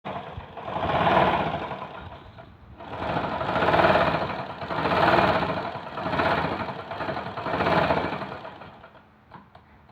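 Raleigh sewing machine stitching, its rattling run speeding up and slowing down about five times before stopping near the end, followed by a few light clicks.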